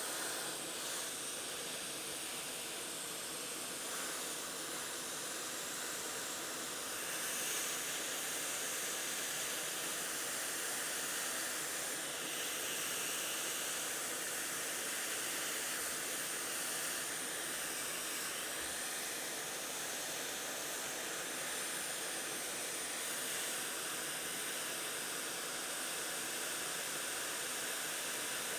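Hot air station handpiece (ATTEN ST-862D) blowing a steady hiss of hot air while desoldering components from a circuit board.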